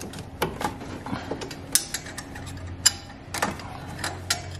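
Irregular clicks, creaks and metallic knocks of parts being handled and worked loose by hand in a truck's engine bay, with a faint low hum for a moment around the middle.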